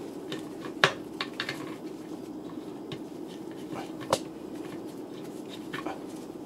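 Handling noise from a One:12 Collective Old Man Logan action figure: a few sharp little clicks and taps of its plastic parts and claws under the fingers, the loudest about a second in and another around four seconds in, over a steady low hum.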